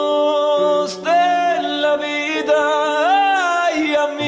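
A slow Spanish-language pop ballad: a male voice singing long, held notes that bend in pitch, over sustained backing chords.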